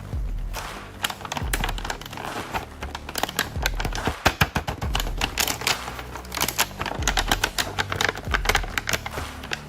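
Background music with a steady bass beat, over which comes a rapid, dense run of clicks and crackles from a few seconds in until near the end.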